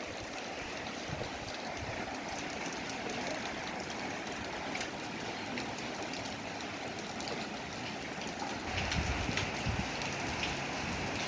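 Heavy rain falling steadily, mixed with the rush of running floodwater; the sound grows a little louder and deeper near the end.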